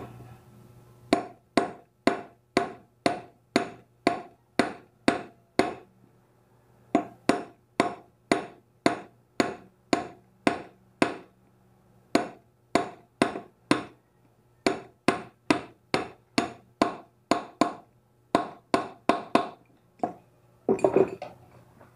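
Hammer blows on a steel pipe used as a drift, driving a cartridge bearing into a DHQ bicycle hub. The sharp strikes come steadily, about two a second, in several runs with short pauses, and a quick flurry near the end.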